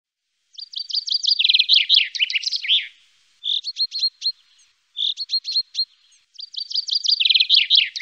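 A songbird singing four phrases of quick, high notes. The first and last phrases last about two seconds and run down into a falling trill, with two shorter phrases between them.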